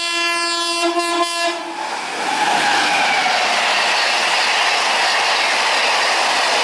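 A train horn sounds for about a second and a half, then cuts off. The train then rushes past at speed, a steady loud noise of wheels running on the rails.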